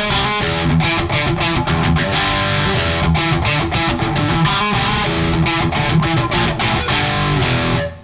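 Electric guitar played through a KOR Oracle overdrive pedal with its voice control at zero and the tone fairly open: a driven tone built on harmonic distortion rather than full saturation. The playing stops abruptly near the end.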